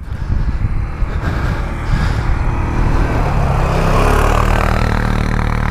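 CFMoto 625 cc ATV engine running steadily while riding over snow, with a second quad passing close by about four seconds in.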